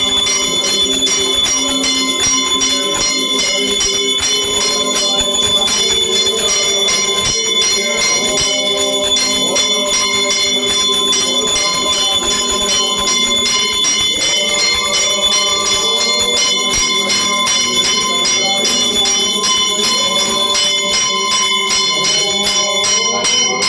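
Temple bell rung rapidly and continuously, its strikes running together into a steady loud ringing, as it is sounded during an aarti flame offering.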